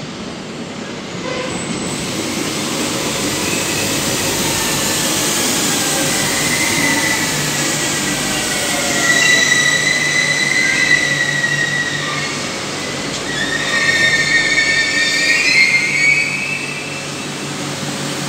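Civia electric commuter train pulling into an underground station platform, its running noise growing as it comes in. High-pitched squeals sound as it slows, about nine seconds in and again near the end, over a whine that falls in pitch.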